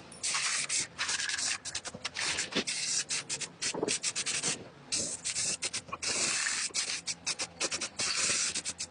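Quick, uneven rubbing and scraping strokes of a hand working over a surface, like sanding or scrubbing, with a few longer strokes among them.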